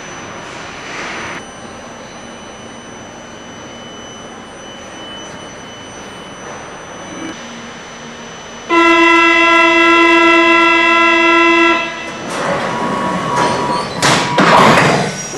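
Inside a VAL driverless metro car standing at a station: a steady electrical hum with a faint high whine. About nine seconds in, a loud, steady buzzer tone sounds for about three seconds as the door-closing warning. It is followed by louder rumbling and clatter as the rubber-tyred train gets under way.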